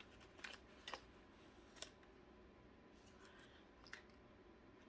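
Near silence: room tone with a few faint, short clicks from a crochet kit's packaging being handled.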